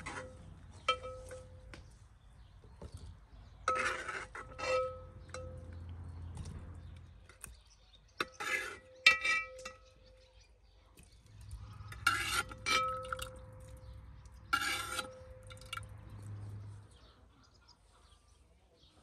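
Metal ladle clinking and scraping against a large aluminium cooking pot and an enamel pot while boiled meat is ladled out. The knocks come in several clusters a few seconds apart, and many leave a short metallic ring.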